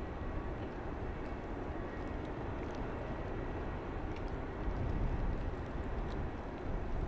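Gusty wind, a low rumble that rises and falls and swells about five seconds in.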